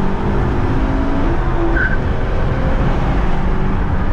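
Acura TL V6 pulling hard through an RV6 J-pipe and high-flow cats just after the shift into third, with the drive tyres spinning and scrubbing as the car peels out on the second-to-third shift.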